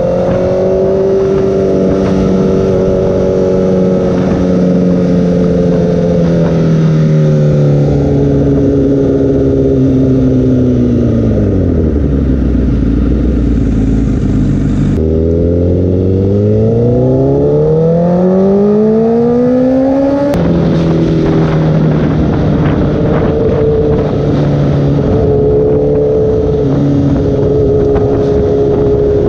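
2016 Honda CBR1000RR inline-four through a Toce aftermarket exhaust, heard from the rider's seat on the move. The engine note holds steady while cruising, falls to a low near-idle note as the bike slows about twelve seconds in, rises steeply as it pulls away, changes suddenly about twenty seconds in, and settles into a steady cruise.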